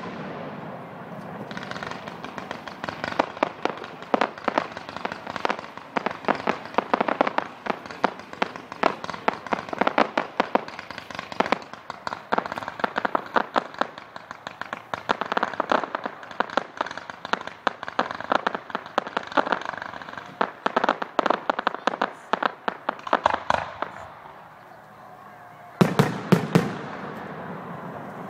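Aerial fireworks crackling: a dense, rapid run of sharp pops and crackles that thins out after about twenty seconds. Then a few loud bursts come near the end.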